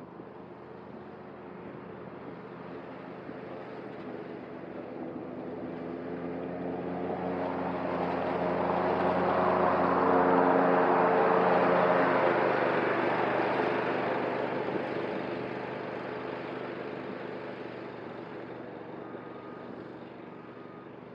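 Cub Cadet ZTS1 zero-turn riding mower running as it mows. It grows steadily louder as it approaches, is loudest about ten seconds in as it passes close by, then fades as it moves away.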